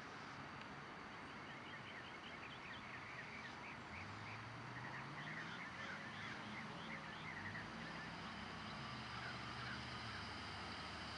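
Rapid, short, high chirps from small animals, many in a loose flurry over a steady outdoor hiss. A low engine drone comes in about four seconds in and shifts in pitch near seven and a half seconds.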